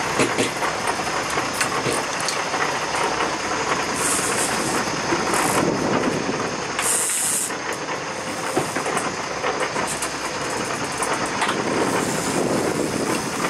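Steady rush of wind and water around a sport-fishing boat under way while trolling, over the drone of its engine. Brief surges of higher hiss come about four seconds in and again around the middle.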